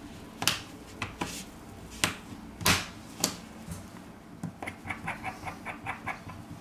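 Sharp plastic clicks and knocks as a smartphone's plastic midframe is pressed and snapped down onto the phone. Near the end comes a quick even run of light ticks, about five a second, as a small Phillips screwdriver turns a frame screw.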